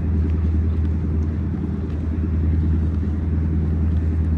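A large engine running steadily, a low, even droning hum.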